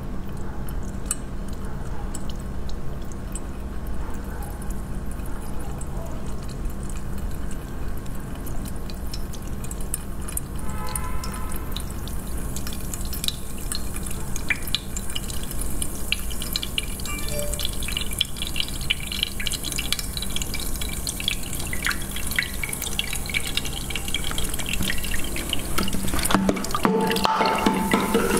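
Thick, dark syrupy liquid pouring from a plastic bottle onto a hand and dripping into a glass dish: soft wet drips and splatters that become busier about halfway through.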